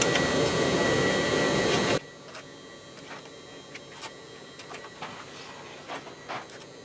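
Steady shop machine noise that cuts off abruptly about two seconds in, followed by faint, scattered short scratches as lines are marked onto a steel plate along a square.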